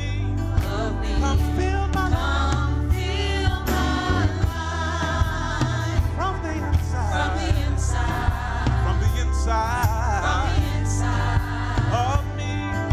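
Gospel praise music: singers in choir style over a band with a strong bass line and a steady drum beat.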